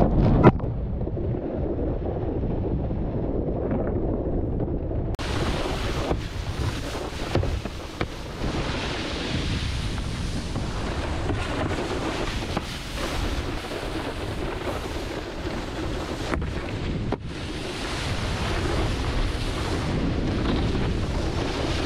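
Wind buffeting an action camera's microphone while a wakeboard skims and carves across the water, its spray hissing. The hiss turns much brighter about five seconds in, and the sound breaks off and changes abruptly a few times.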